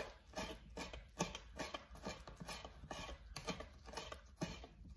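Small kitchen knife chopping scotch bonnet pepper on a plastic cutting board: light taps of the blade against the board, about two or three a second.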